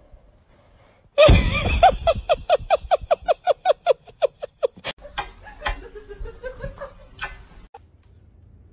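A person laughing: a loud outburst about a second in, then a run of quick, high-pitched 'ha' pulses, about five a second, that fade out after some three seconds. Quieter sounds with a few clicks follow.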